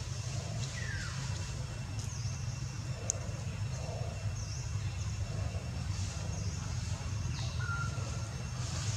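Outdoor ambience: a steady low rumble like a distant running engine, with short high falling chirps from animals several times, including one lower falling call about a second in.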